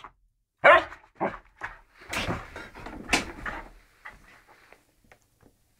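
Small dog giving a loud bark, then several shorter barks and yips amid rustling of a towel and bedding, all dying away about four seconds in; the dog is in an excited play fit after its bath.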